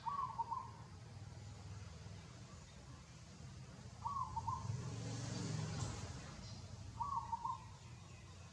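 An animal call, a short warbled note about half a second long, repeated three times a few seconds apart over a low rumble that swells about halfway through.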